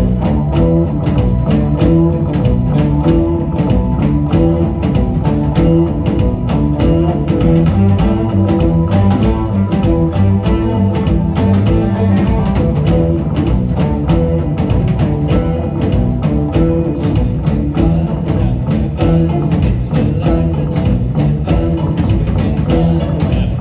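Live psychedelic rock band playing: electric guitars over a drum kit keeping a steady beat.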